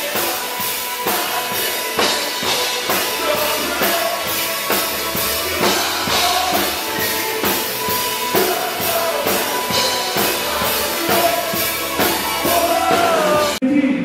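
Live band playing a song: a drum kit keeping a steady beat under a singer and amplified instruments. It cuts off abruptly just before the end.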